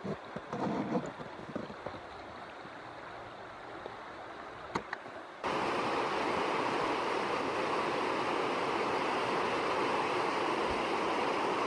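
A river flowing softly, then, about five and a half seconds in, an abrupt change to the loud, steady rush of whitewater rapids.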